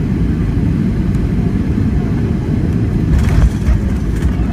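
Steady low rumble of a Boeing 757 heard from inside the passenger cabin around landing, with a few short rattles and clicks a little over three seconds in.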